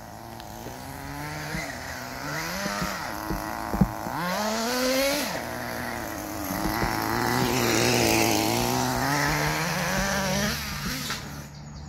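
Small nitro engine of an RC car running hard, revving up and down as the car drives over dirt toward and up a jump. Near the end the engine cuts out suddenly: it stalls.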